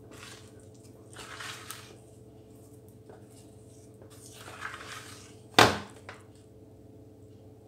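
Wooden spatula folding thick cake batter in a ceramic bowl: two soft squelching swishes, then a sharp knock of the spatula against the bowl about five and a half seconds in, the loudest sound, followed by a lighter tap. A faint steady hum runs underneath.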